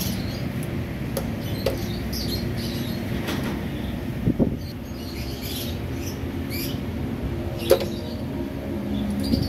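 Scattered metallic clicks and knocks of a hand tool being worked against a motorcycle frame, the loudest about four and a half seconds in and again near eight seconds, over a steady low hum.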